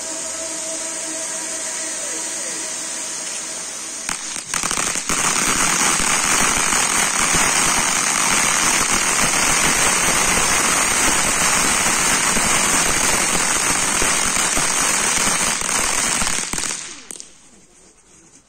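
Pyrotechnic spark fountains hissing steadily. About four seconds in there is a crack, then a loud, dense crackle of crackling fountains that lasts about twelve seconds and dies away quickly near the end.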